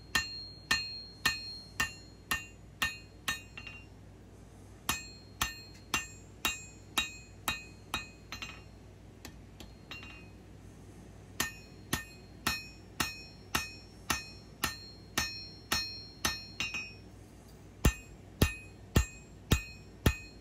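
Hand hammer striking hot knife steel on an anvil, drawing down the blade's bevel: steady blows about two a second, each with a high ringing note. The blows come in several runs with short pauses, and the last run is louder.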